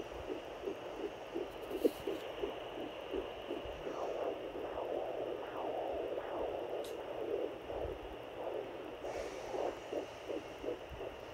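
Fetal heartbeat at about 10 weeks through a handheld home fetal Doppler: a fast, even whooshing pulse of about three beats a second, the rapid rate of a fetal heart. A few seconds in it blurs into a smeared whoosh, then the beat comes back clear.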